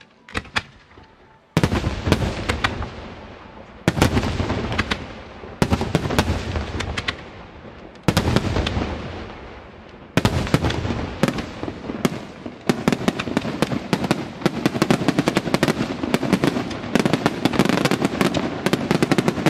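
Aerial firework shells bursting: a few faint pops, then loud bangs about every two seconds, each fading away, and from about thirteen seconds in a dense, rapid barrage of reports and crackling.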